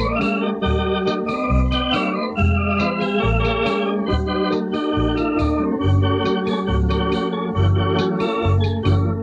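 Thomas electronic home organ playing a lively tune: held chords and melody over a bass line that changes note about twice a second. Heard from a 1970s cassette recording with some wow and flutter.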